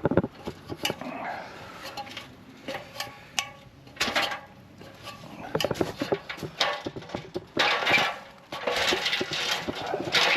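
Plastering tools clinking and scraping during render work: irregular sharp knocks and clicks, with several longer scraping bursts in the second half.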